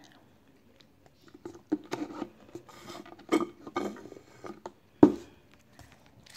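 Wet mouth sounds of drinking from a paper fast-food cup: sipping, smacking and swallowing in short bursts. About five seconds in, a sharp knock as the cup is set down on the table.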